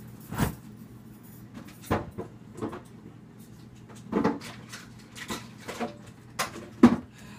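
Kitchen knocks and clunks from cupboard doors and items being handled, about ten sharp knocks spread through, the loudest near the end, over a steady low hum.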